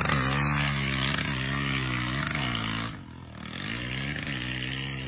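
Dirt bike engine revving up and down over and over as the rear wheel spins through deep mud, its pitch rising and falling about once a second. It drops in loudness about three seconds in and then picks up again, quieter.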